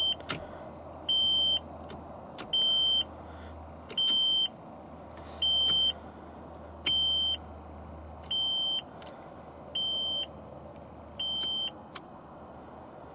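A car's electronic warning chime beeping steadily, about eight short high beeps at roughly one every 1.4 seconds, over a low steady hum.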